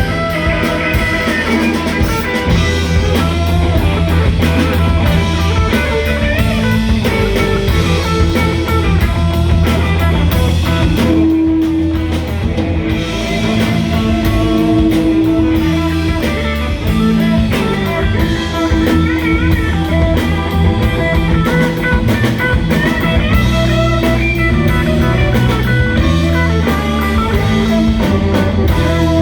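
Live rock band playing an instrumental passage: electric guitar lead over bass and a drum kit keeping a steady beat.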